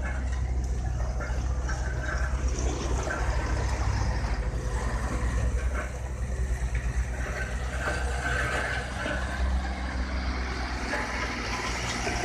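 A heavy vehicle's engine running steadily, a deep continuous rumble, mixed with street traffic noise.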